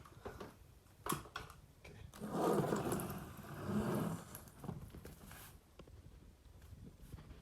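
Handling noise: a sharp click about a second in, then about two seconds of rustling and scraping, with a few lighter clicks after.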